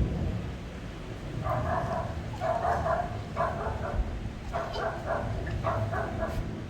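Repeated short pitched animal calls, about six of them, each about half a second long, beginning about a second and a half in, over a low background rumble.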